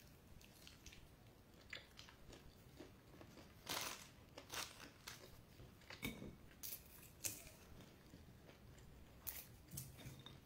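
Chewing and crunching of peanuts eaten with bobolo, in scattered crunches, the loudest about four seconds in.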